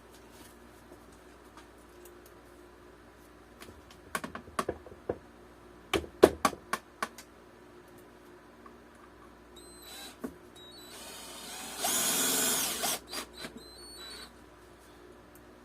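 Sharp clicks and taps of small parts being handled, then a power drill runs for about two seconds, driving a screw into the plywood bike frame.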